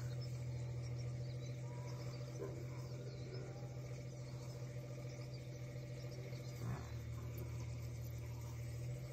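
Faint insect chirping over a steady low hum, with one short animal call, like a bleat, about seven seconds in.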